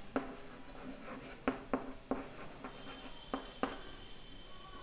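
Chalk writing on a chalkboard: a string of sharp taps and short scratches as letters are written, about half a dozen strokes with gaps between them.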